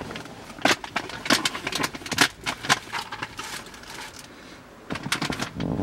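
Plastic clicks and knocks from a Mitsubishi Pajero's lowered glovebox as items are taken out of it and handled, with a short rustle of packaging. There is a quick cluster of knocks about five seconds in.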